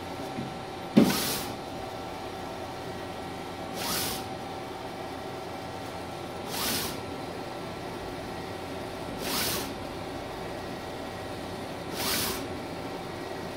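Mimaki 3042 HG UV-LED flatbed inkjet printer running a print: a steady hum with a constant tone, and a hissing swoosh about every three seconds as the print-head carriage makes a pass. A sharp knock about a second in is the loudest sound.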